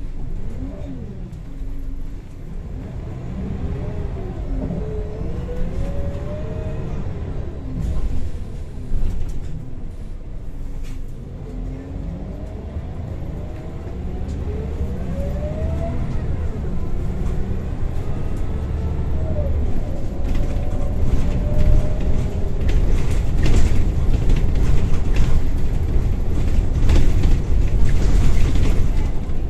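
Scania L94UB bus's engine and ZF automatic gearbox heard from inside the saloon, with road rumble. Several whines rise in pitch and drop back as it changes up, and it gets louder with rattles over the last third as the bus picks up speed.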